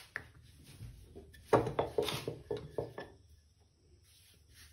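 A few soft knocks and rubbing sounds of dough and flour being handled on a rolling board, bunched between about one and a half and three seconds in, with the first knock the loudest.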